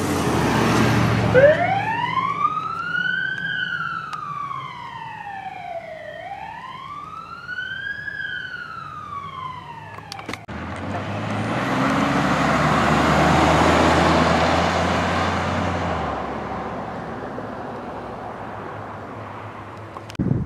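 Emergency vehicle's electronic siren on wail. It winds up about a second in, rises and falls slowly twice, and cuts off abruptly about halfway. Then a passing vehicle's tyre and engine noise swells and fades.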